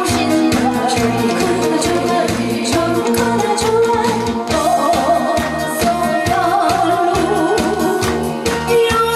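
A singer performing a song over music with a steady beat, the audience clapping along in time.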